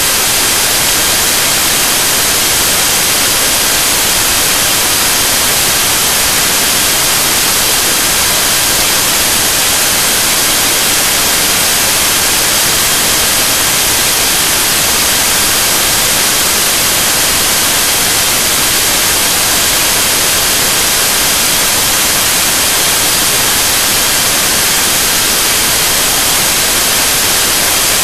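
Loud, unbroken static hiss like white noise, brightest in the treble, with faint steady high whine tones running through it.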